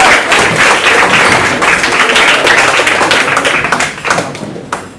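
Audience applauding: a loud, dense clatter of many hands clapping that thins out about four seconds in, ending with a few last claps.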